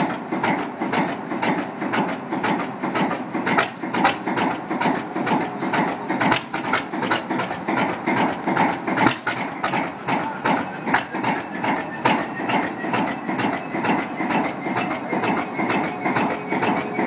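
Class 20 diesel locomotive's English Electric eight-cylinder engine idling after a cold start, a rapid, uneven pulsing beat with the exhaust chuffing from the roof stack.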